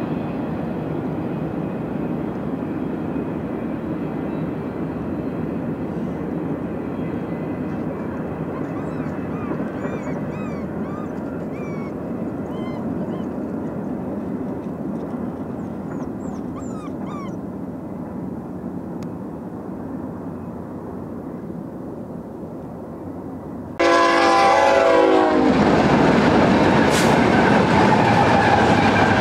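Double-stack intermodal freight train rolling away, its steady low rumble slowly fading, with a few faint high chirps. About 24 seconds in it cuts abruptly to BNSF GE diesel locomotives passing close: a horn chord for about a second and a half, then loud engine and wheel noise.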